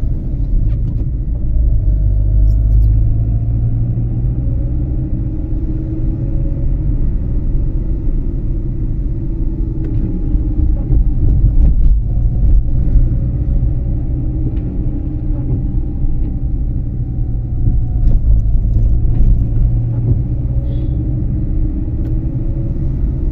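Car interior noise while driving: a steady low rumble of engine and road, with the engine's faint tone slowly rising and falling as speed changes.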